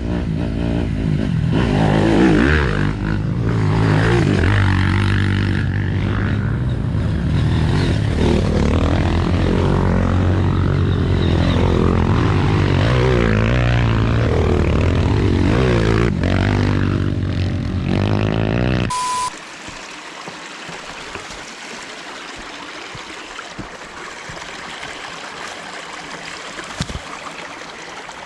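Motorcycle engine running under way, its pitch rising and falling with the throttle; about two-thirds of the way through it cuts off abruptly to a quieter steady rushing noise.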